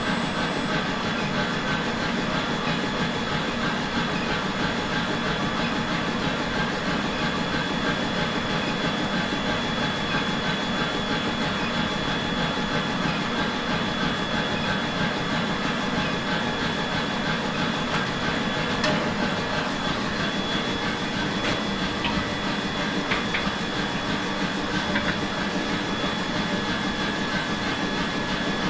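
Steady running forge-shop machinery: a continuous mechanical drone with a constant high-pitched whine over it, and a couple of small knocks near the end.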